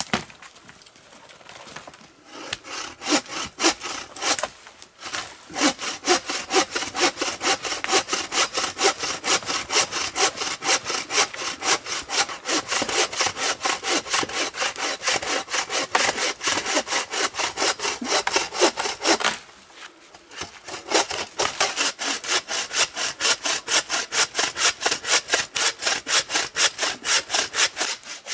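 Hand saw cutting through wood in quick, even back-and-forth strokes. The sawing stops for about a second roughly two thirds of the way through, then starts again at the same pace.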